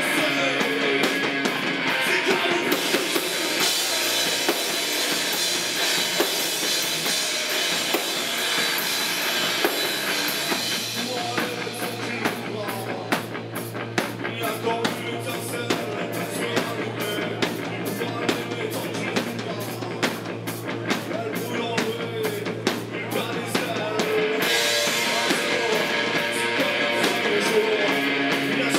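Rock band playing: drum kit, bass and guitar. About eleven seconds in the music thins to a sparser passage with a held low bass note under steady drum hits, and it swells back to full volume near the end.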